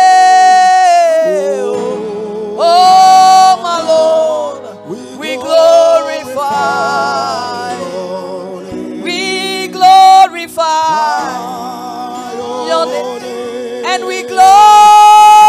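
Worship singing: a voice holding long notes with vibrato over sustained accompaniment, with a high held note at the start and another near the end.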